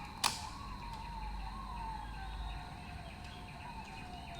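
A siren wailing faintly in the background, its single tone slowly wavering and sinking in pitch. A sharp click sounds just after the start.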